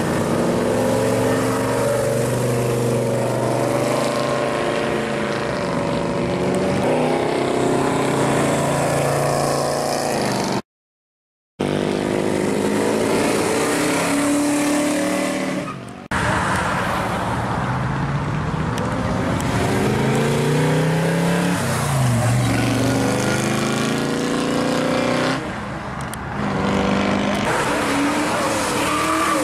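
Classic American muscle cars driving past one after another, their engines rising and falling in pitch as they accelerate by. The sound cuts out completely for about a second partway through.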